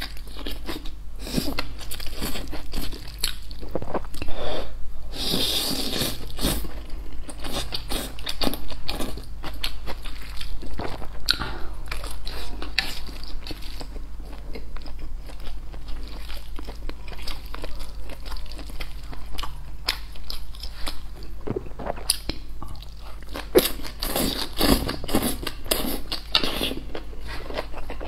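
Close-miked eating sounds: a person slurping and chewing saucy wide flat noodles, with a dense, irregular run of wet mouth clicks and smacks.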